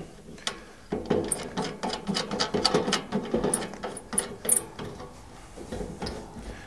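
Black knobs being screwed back onto the stainless steel firebox door plate: a quick run of small clicks, taps and scrapes of knob and hands on the metal, thickest in the middle and thinning out near the end.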